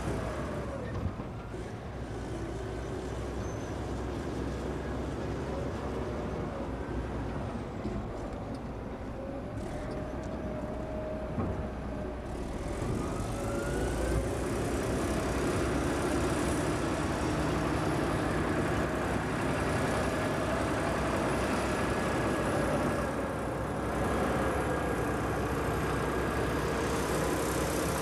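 Heavy diesel engines of a wheeled motor scraper and the crawler bulldozer pushing behind it, running steadily as they work through the soil. The engine note wavers up and down and grows louder about halfway through.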